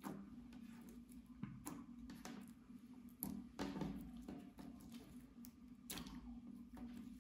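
Clear slime being pressed flat, folded and squeezed by hand, giving irregular small wet clicks and pops, the loudest about halfway through and again near the end. A steady low hum lies under it.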